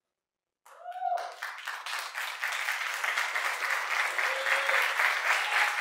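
Audience applauding, starting abruptly out of silence about half a second in and swelling, with a short cheer rising over it near the start.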